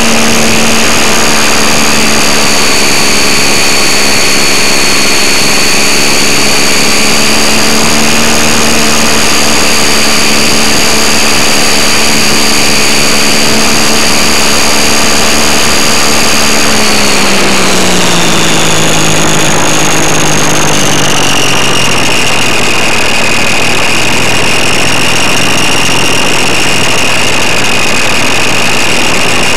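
Electric motor and propeller of a GWS Beaver model plane whining steadily, picked up close by the plane's onboard camera over a heavy hiss of rushing air. About two-thirds of the way through, the pitch falls over a few seconds and settles lower.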